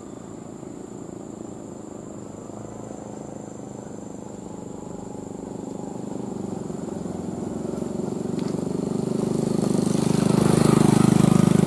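Diesel engine of a Mitsubishi Canter truck hauling a full load of oil-palm fruit up a rough dirt track, running under load. It grows steadily louder and is loudest near the end.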